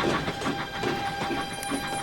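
Steam locomotive chuffing in a quick, even rhythm of about five beats a second.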